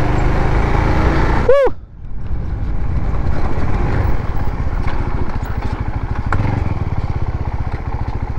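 Motorcycle engine running steadily while the bike is ridden. About one and a half seconds in there is a brief rising-and-falling tone, and the engine sound drops for a moment before picking up again.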